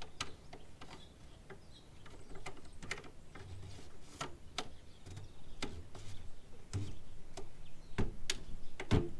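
Scattered light plastic clicks and knocks from a diesel fuel filter assembly being handled, as its filter head is seated and the locking ring screwed on by hand. There are sharper knocks near the end.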